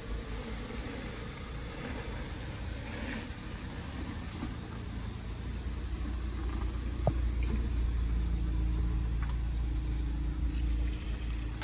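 Volkswagen Golf GTI Mk7.5's 2.0-litre turbocharged four-cylinder engine idling steadily, growing louder about halfway through, with a single sharp click late on.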